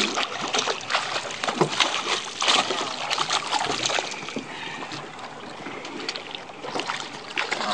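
Hooked spotted mackerel thrashing at the surface beside a boat's hull, a quick run of splashes that is busiest in the first four seconds and then eases off.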